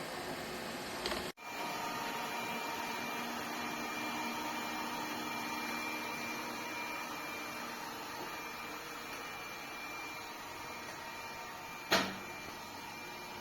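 Robot vacuum running steadily: an even motor hiss with a thin high whine over it. The sound drops out for an instant about a second in, and there is one sharp click near the end.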